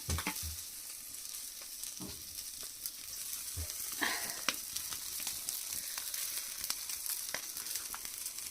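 Chicken sekuwa sizzling over hot charcoal: a steady high hiss with scattered crackles and clicks, and a few faint low knocks.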